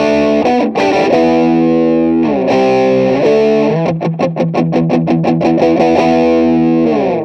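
Overdriven electric guitar in a Marshall Plexi-style crunch tone playing a hard-rock riff: ringing chords with changes, then quick palm-muted strokes a few seconds in. It stops abruptly near the end.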